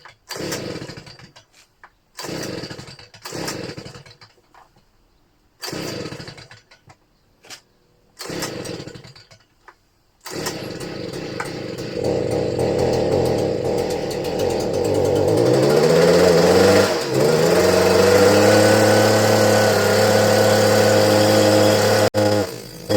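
Stihl BG 56 C leaf blower's small two-stroke engine pulled over several times on the recoil starter without firing, then catching about ten seconds in and running, revving up and down before settling to a steady speed. It is hard to start despite a new carburettor, which the owner puts down to a blocked exhaust causing back pressure.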